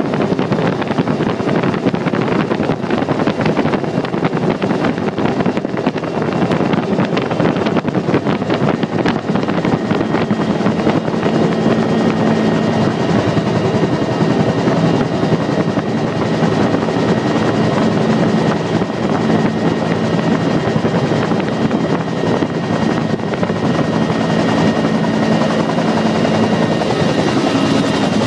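Bell UH-1D Huey's main rotor and turboshaft engine heard from inside the cabin during an autorotation descent, with the rotor turned by the airflow rather than driven by engine power. It is a steady, loud rotor din with a turbine whine, and a low hum and a high whine become clearer about ten seconds in.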